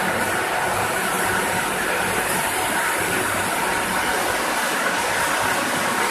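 Steady, even running noise of an industrial continuous fryer line and its conveyors, with a faint low hum underneath.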